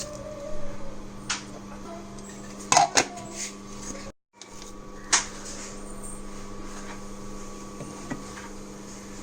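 Cookware and utensils clinking and knocking now and then, the loudest clatter about three seconds in, over a steady low hum.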